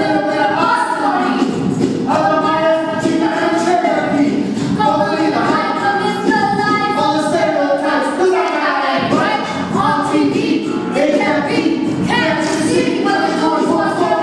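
Several voices singing a song together, loud and continuous, with overlapping vocal lines.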